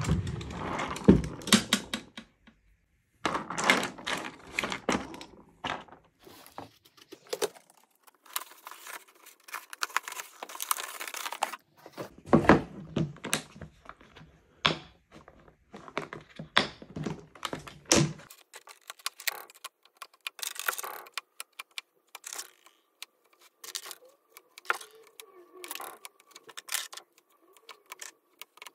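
Handling noise: knocks and clunks as a wooden drawer and a plastic storage case are moved, then a run of light clicks and clatter as loose batteries are picked up and pushed into the case's slots.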